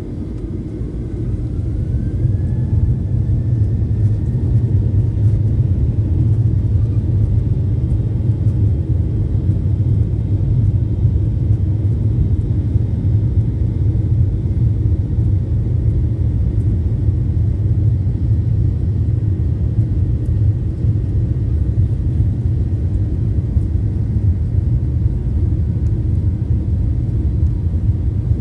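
Jet airliner's engines spooling up to take-off thrust, heard from inside the cabin: a whine rising in pitch and growing louder over the first few seconds, then a steady loud rumble through the take-off roll.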